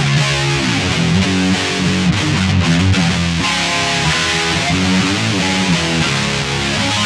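Guitar-led music: many plucked and strummed notes moving continuously over a full, loud mix.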